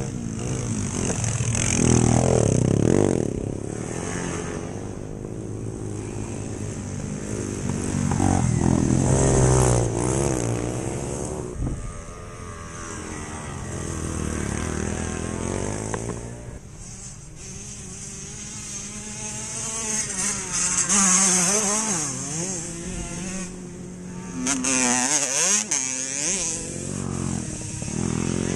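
Small moped and motorcycle engines revving as several race bikes ride past one after another on a dirt track, each rising in pitch and loudness as it comes and falling away as it goes, about five passes in all.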